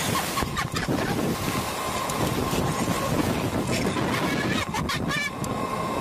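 Wind buffeting the Slingshot ride's onboard camera microphone as the capsule swings through the air, a dense rumbling rush. A brief vocal sound about five seconds in.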